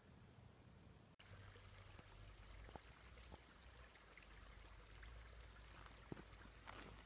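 Faint trickle of a shallow creek running over stones, over a soft steady low rumble, with a brief click near the end.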